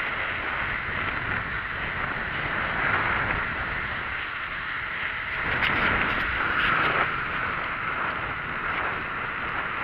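Steady rushing wind noise on the microphone of a camera mounted on a moving bicycle, with a few brief rattles near the middle.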